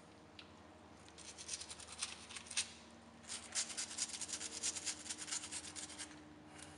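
Faint, rapid scratchy strokes of a cotton swab scrubbed back and forth in the chambers of a cap-and-ball revolver's cylinder. They come in two spells, starting about a second in.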